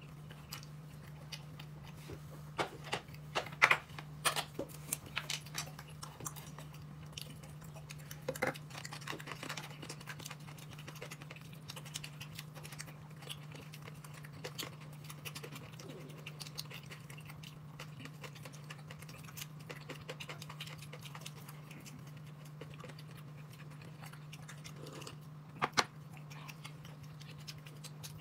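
Someone eating: chewing with scattered light clicks and taps of utensils, a cluster of them a few seconds in and a sharper pair near the end, over a steady low hum.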